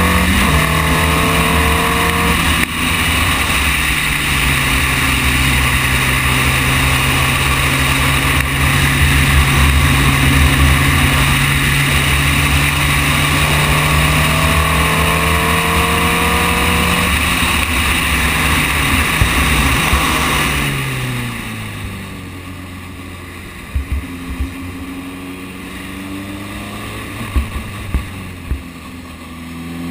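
Formule Renault 2.0 race car's 2-litre four-cylinder engine heard from the cockpit with wind on the microphone. It shifts up within the first few seconds, then holds a long steady high-revving note at full throttle. About twenty seconds in the revs and level fall, a few sharp knocks follow, and the revs begin to climb again near the end.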